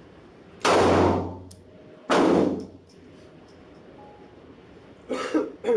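Two 9 mm pistol shots from an FN FNS-9, about a second and a half apart, each a sharp crack followed by a ringing echo. Several quicker, sharp sounds follow near the end.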